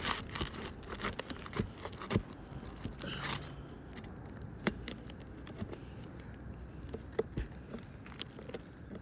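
Flat bar scraping and prying under asphalt roof shingles, with scattered clicks and crackles as a roofing nail is worked loose.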